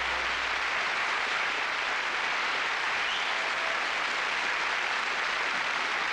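Studio audience applauding and cheering at the end of a song, steady throughout, while the band's last low note dies away in the first second.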